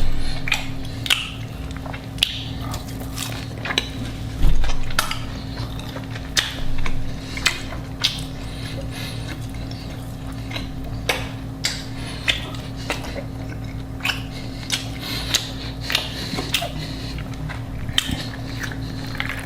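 Close-up eating: biting and chewing with frequent sharp, crunchy clicks and a few louder bites, over a steady low hum.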